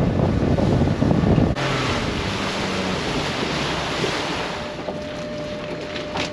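Boat under way: engine rumble with wind buffeting the microphone and water rushing past. About one and a half seconds in it cuts abruptly to a softer, steady hiss of wind and sea.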